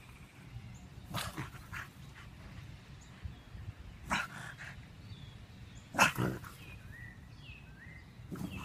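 A corgi rolling on its back in the grass, giving a few short, sharp dog sounds about one, four and six seconds in, the last the loudest.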